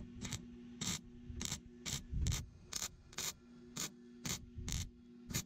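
MIG welder laying short tack or stitch welds on a sheet-steel patch panel, about two quick sizzling bursts a second over a faint steady hum.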